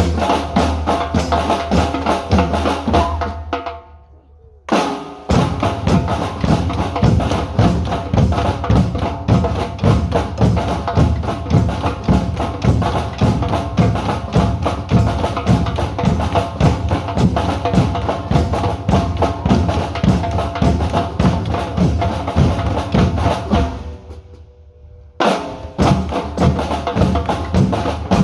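A group of drums playing a driving, steady rhythm together, with deep bass drum and snare strokes. The playing stops dead twice, leaving the drums ringing for about a second, then the whole group comes back in on the same beat.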